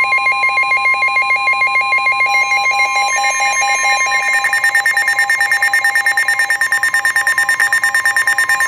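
NOAA Weather Radio 1050 Hz warning alarm tone, a steady loud electronic tone that cuts off near the end. Rapid electronic beeping at several pitches pulses over it throughout and grows more prominent about halfway in.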